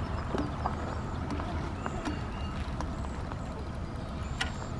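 Steady low outdoor rumble, with a few short high bird chirps and scattered light clicks.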